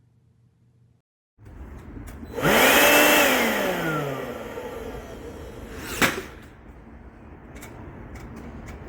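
A DeWALT 20V MAX cordless power tool's motor spins up quickly and runs for under a second, then winds down, its pitch falling as it coasts to a stop. A sharp click follows about six seconds in.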